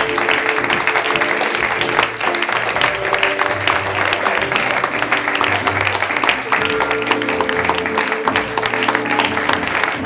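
Audience applauding, a dense, even clapping, over music with held notes and a pulsing bass line.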